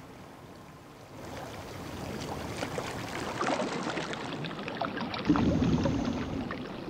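Underwater sound recorded beneath a floating sargassum mat: a crackling hiss of many small clicks builds up after about a second. About five seconds in comes a louder low rush of a scuba diver's exhaled regulator bubbles.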